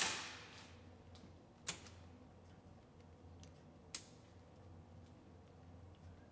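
Two short, sharp metallic clicks about two seconds apart, with a few fainter ticks between them, as small metal parts are handled. Under them runs a low steady hum, and a hiss fades out in the first second.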